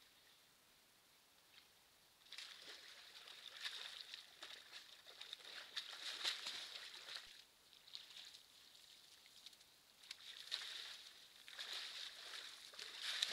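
Water sloshing and splashing faintly as a large animal moves and wallows in a muddy wallow pool, in two spells of a few seconds each, the first starting about two seconds in.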